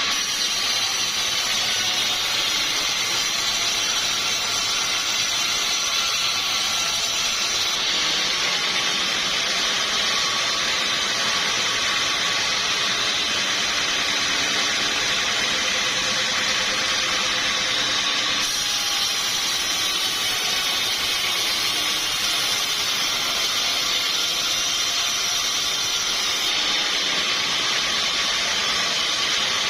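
Sawmill saw running steadily while cutting through timber, a dense even machine noise. Its character shifts abruptly three times.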